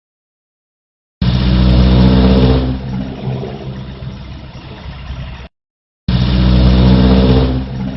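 Car engine revved twice, each time loud for about a second and a half and then dropping back toward idle. It carries the loud noise that the owner blames on an over-tightened drive belt. Each burst starts abruptly.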